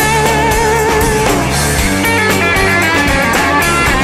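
Instrumental break of a 1990s rock song: guitars and drums, with a lead line holding a wavering note for about the first second.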